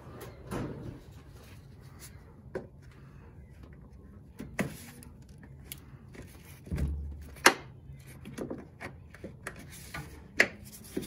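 Hand tools clicking and knocking in a car's engine bay as a screwdriver pries a retaining clip aside by the plastic coolant tank. Scattered sharp clicks, the loudest about seven and a half seconds in, with a dull thump just before it.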